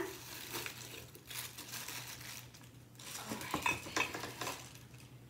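Scentsy Under Wraps mummy wax warmer being packed away: soft rustling of its plastic wrapping with a few light ceramic clinks and knocks, clustered about three to four and a half seconds in.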